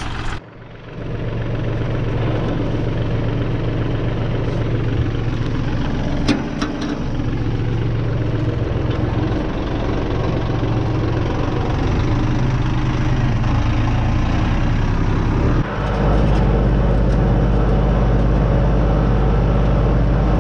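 Kubota compact tractor's diesel engine running steadily. About three-quarters of the way through, the sound steps up to a louder, deeper hum.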